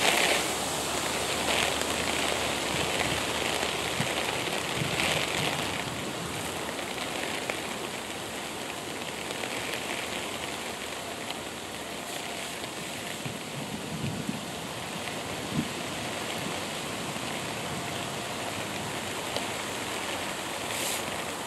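Steady outdoor ambient noise, an even hiss, with a few brief swells near the start, about five seconds in, and near the end.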